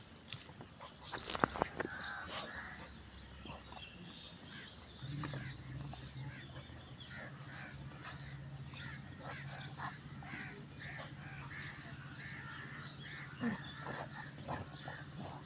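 Crows cawing among other birds' chirps, with a steady low hum coming in about five seconds in.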